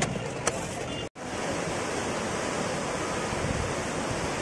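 A moment of street bustle with a few sharp clicks, then after a sudden cut about a second in, the steady rush of the fast-flowing Ganges churning around a bridge pier.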